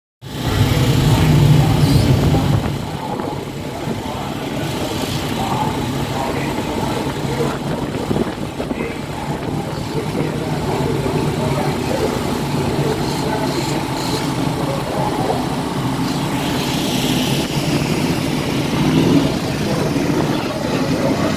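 Several sportsman modified dirt-track race cars' V8 engines running at low speed. A deep rumble is loudest in the first two seconds, then a steady mix of engines idling and rolling.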